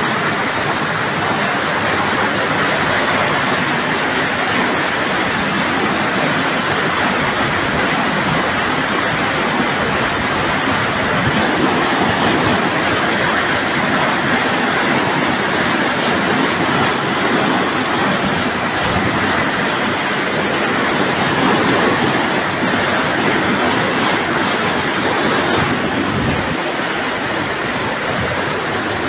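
Fast floodwater rushing through a street: a loud, steady rushing of turbulent water.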